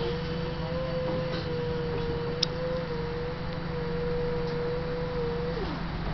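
Trolleybus electric drive whining at a steady pitch over a low hum, the whine gliding down about five and a half seconds in. A single sharp click about two and a half seconds in.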